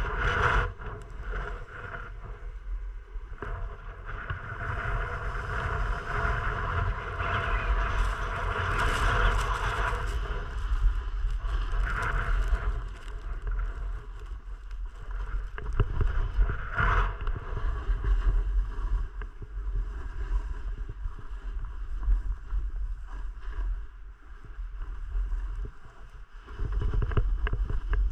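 Wind buffeting an action camera's microphone: a steady low rumble under a rushing hiss that swells about five seconds in and dies back near ten seconds, with brief louder gusts later on.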